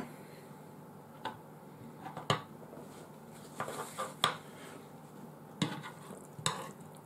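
Cutlery clinking against a dish several times, short separate clinks spread a second or so apart, as food is picked up from the plate.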